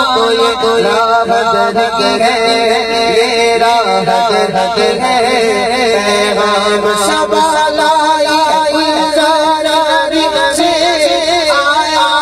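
A solo male voice sings an Urdu naat, a devotional poem in praise of the Prophet, into a handheld microphone. The phrases are long and ornamented, with the pitch wavering and bending without a break.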